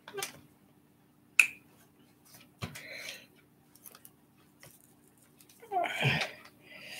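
Clamps being fitted onto a glued wooden model airplane: a sharp click a little over a second in and another about a second later, with soft handling and rustling around them.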